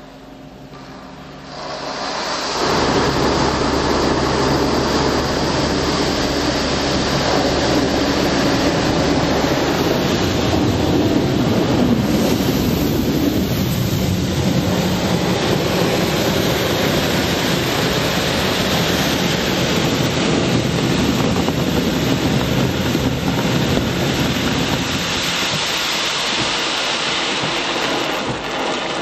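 Automatic car wash machinery working over a car, heard from inside the cabin: a loud, steady rushing roar that starts about two seconds in and drops off just before the end.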